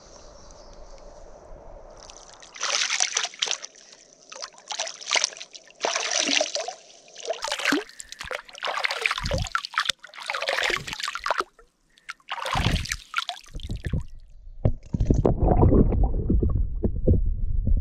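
Shallow stream water splashed and sloshed by a hand in irregular bursts. About fifteen seconds in, a plastic water bottle is held under the surface and water gurgles in as it fills.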